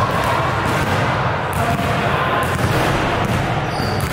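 Basketball bouncing on a hardwood gym floor, a few dull impacts over the steady, echoing din of a large gymnasium.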